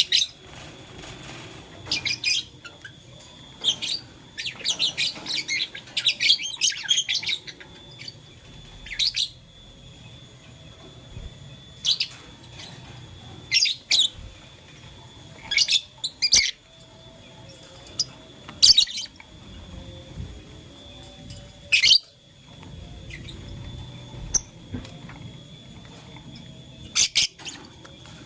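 Lovebirds chirping: short, sharp, high calls, with a quick flurry of them a few seconds in, then single chirps every second or two.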